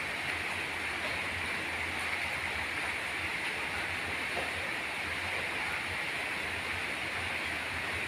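A steady, even hiss with a low hum beneath it, unbroken throughout.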